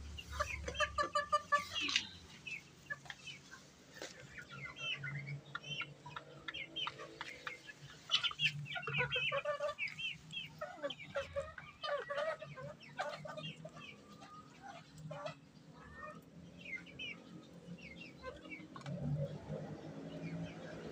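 A small flock of bantam chickens clucking, with many short calls overlapping one another.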